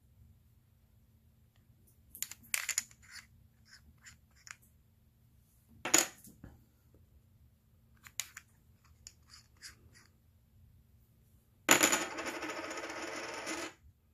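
Stacked poker-chip-style board game tokens clicking against one another as they are handled and flipped through one at a time, with one sharper click about six seconds in. Near the end comes a denser rattle of chips lasting about two seconds.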